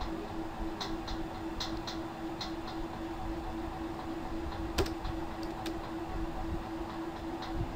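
Steady low electrical hum with background hiss, with scattered faint clicks and one sharper click about five seconds in.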